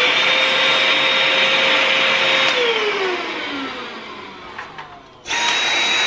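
Two cordless vacuum cleaners run one after the other. A Black & Decker handheld vacuum's motor spins up with a whine, runs for about two and a half seconds and winds down in falling pitch. Then a Dyson V7 Motorhead+ stick vacuum starts abruptly near the end and runs with a steady high whine.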